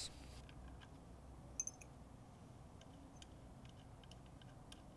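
Faint, irregular clicking of a socket ratchet wrench as a bolt is loosened, a few clicks a second.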